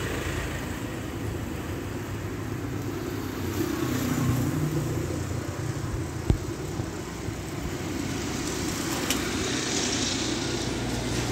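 Street ambience with steady road traffic noise from vehicle engines. One short sharp knock sounds about six seconds in.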